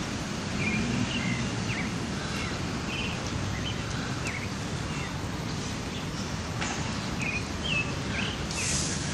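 Small birds chirping, many short high calls scattered throughout, over a steady background of outdoor noise.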